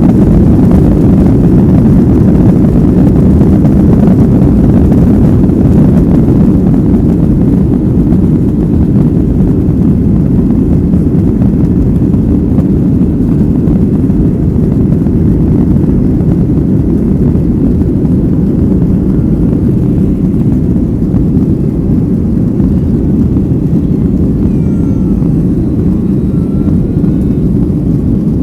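Steady cabin rumble of a Boeing 737-800 climbing after takeoff: the CFM56-7B engines and rushing air heard from inside the cabin. The level eases slightly a few seconds in.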